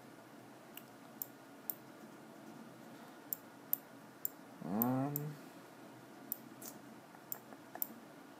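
Light, irregular computer mouse clicks, about a dozen, as an image is selected and dragged into place. About halfway through, a short voiced sound rising in pitch, the loudest thing heard.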